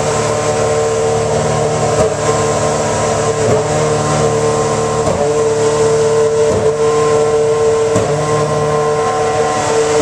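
Team Lotus Formula 1 car's 2.4-litre flat-plane V8 running during its warm-up, holding a high, steady, shrill pitch with short wavers about every second and a half.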